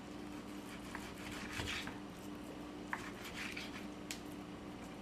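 Faint sounds of a knife cutting raw beef on a wooden cutting board: soft slicing and a few light taps of the blade against the board, over a steady low hum.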